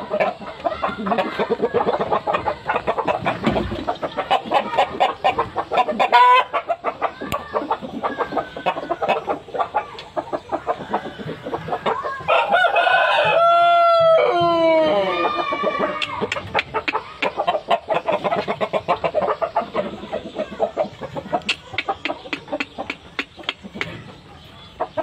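Chickens clucking steadily, with a rooster crowing once about halfway through: a long call that holds its pitch, then falls away at the end.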